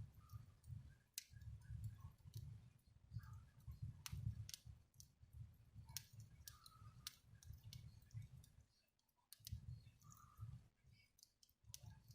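Fire burning in a fireplace: scattered sharp crackles and pops at an irregular pace over a low, uneven rumble of flame, which briefly drops away about nine seconds in.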